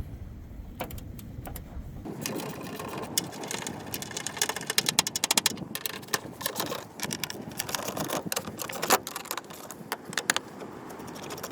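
Ratchet with a 13 mm socket clicking rapidly in runs as the bolts of a battery hold-down bracket are loosened. The clicking starts about two seconds in, after a few separate clicks.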